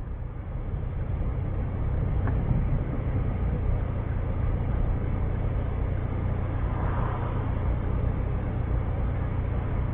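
Steady low rumble of a car's engine and tyres on the road, heard from inside the cabin through a dashcam's microphone.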